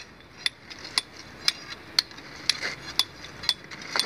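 Hammer blows on steel, about two a second in a steady rhythm, each a sharp metallic clink with a short ring: stone splitters driving a steel chisel or wedge into a boulder to split it.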